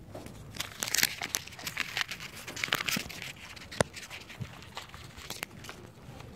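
Close rustling and crinkling handling noise with scattered clicks, busiest in the first three seconds, and one sharp click about four seconds in.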